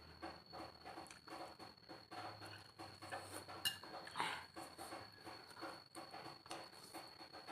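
Faint chewing of noodle soup, soft mouth sounds repeating about two to three times a second, with a single sharp clink of cutlery on the bowl about three and a half seconds in.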